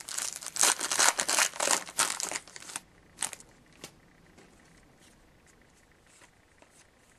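Foil trading-card pack wrapper being torn open and crinkled for nearly three seconds, followed by a couple of light clicks from handling.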